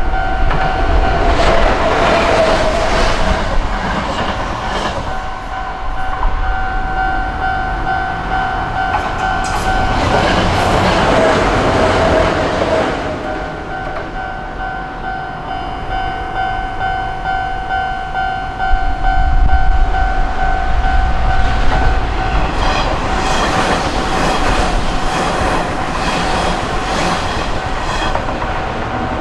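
Japanese level-crossing alarm ringing steadily while electric trains pass over the crossing, the train noise swelling three times, with wheels clicking over rail joints during the last pass.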